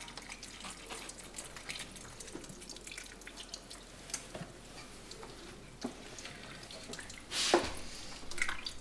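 Beef stock pouring from a carton into a cast-iron Dutch oven, trickling and splashing onto the meat and beans in small irregular drips. A louder clatter comes about seven and a half seconds in.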